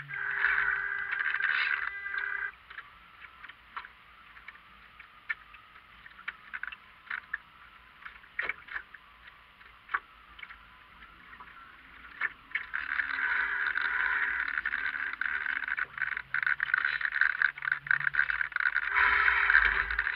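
Water rushing and splashing against the hull of a Marblehead radio-controlled yacht, heard from a camera mounted on its deck. The rush is loud for the first couple of seconds, drops to a quiet stretch with small ticks and knocks, then comes back strongly from about two-thirds of the way in.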